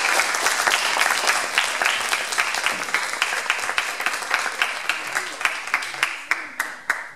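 Audience applauding, many hands clapping together, slowly thinning and growing quieter before stopping abruptly at the end.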